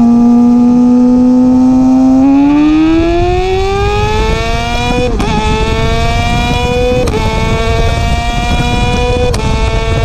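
Kawasaki ZX-6R 636 cc inline-four running through an M4 exhaust with de-catted baffles, heard right beside the exhaust. It holds steady at high revs for about two seconds, then revs climb under acceleration, with three upshifts about five, seven and nine seconds in, each a brief snap and a sudden drop in pitch.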